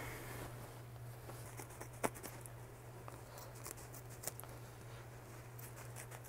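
Scissors cutting Thinsulate insulation sheet, heard as faint snips and clicks. The loudest click comes about two seconds in and another just after four seconds, over a low steady hum.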